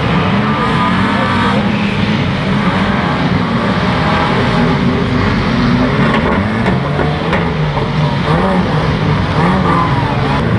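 Several old banger racing cars' engines revving hard and unevenly, their pitch rising and falling as the cars push and shunt one another, with a few faint knocks around the middle.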